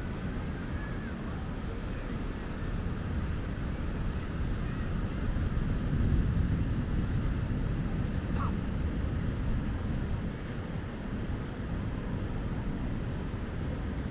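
Steady low rumble of breaking surf and wind, swelling louder a few seconds in, with a faint brief chirp later on.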